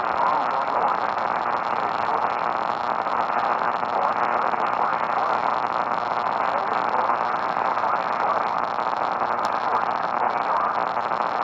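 Steady radio static: an even hiss with no tones or voice in it, as from a radio receiver with no programme coming through.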